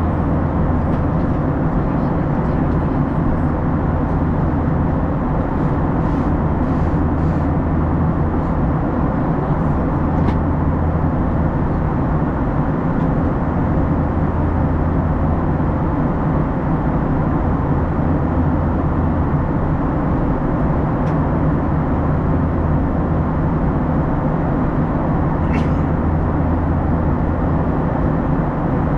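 Steady airliner cabin noise of an Airbus A321 in flight: a constant rush of airflow with a low engine hum. A few faint clicks are heard, around a third of the way in and near the end.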